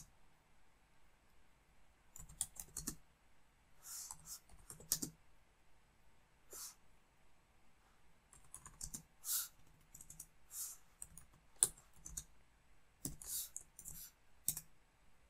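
Faint, intermittent typing on a computer keyboard: short runs of key clicks with pauses between them.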